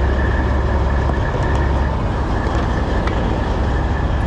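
A truck engine idling nearby, giving a steady low rumble with a faint steady whine above it.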